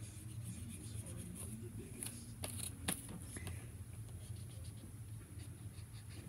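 Scented felt-tip marker drawing on paper in short scratchy strokes, with a couple of sharper clicks about two and a half to three seconds in.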